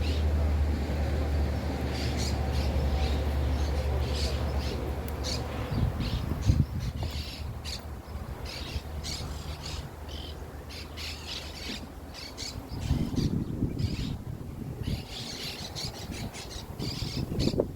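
Birds calling outdoors, many short, high calls and squawks repeating throughout. A low rumble sits under them for the first several seconds, then dies away.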